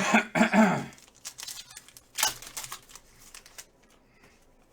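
Trading-card packs being handled: wrappers crinkling and tearing and cards rustling and flicking against each other, in a run of scratchy rustles loudest about two seconds in.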